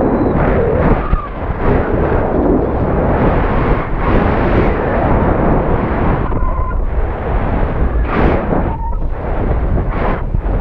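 Wind buffeting the microphone of a high-altitude balloon payload's camera as it falls under its parachute after the balloon has burst: a loud, rumbling rush that surges and dips in gusts.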